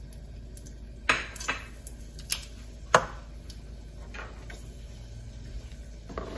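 Kitchenware clinking and knocking: about four sharp clinks in a couple of seconds, the last the loudest, as a plate and utensils are handled beside a stainless steel stockpot. The rest is quiet.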